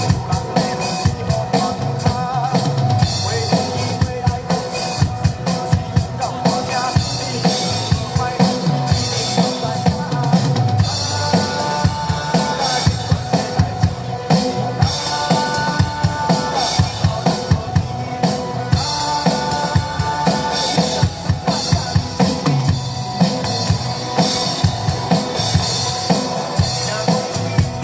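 Music with a drum kit keeping a steady beat, kick and snare hitting regularly under sustained melodic parts.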